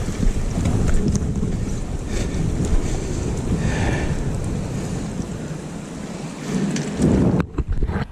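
Wind rumbling on the microphone over sea surf washing against shore rocks, cutting off abruptly near the end.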